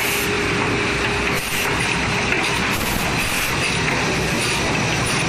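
Steady running noise of woodworking machinery, an automatic cutting-saw line, with a high, hissing band throughout and a faint steady hum that fades after the first second.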